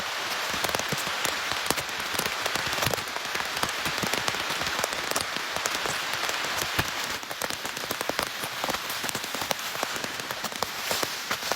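Steady rain falling, with many separate drops striking sharply close by; a little softer from about seven seconds in.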